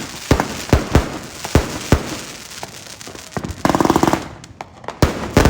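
Beast 100s multi-shot firework cake firing: sharp bangs about two a second, then a quick rattle of small pops a little over three and a half seconds in, a short lull, and two more bangs near the end.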